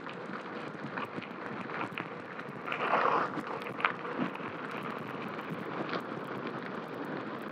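Gravel bike's tyres rolling fast on a dirt and gravel road, with wind rushing over the helmet-camera microphone and scattered small ticks. A brief louder rush comes about three seconds in.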